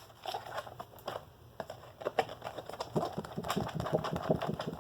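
Notebooks being handled: a run of quick clicks, taps and rustles of covers and pages, growing denser and louder about halfway through.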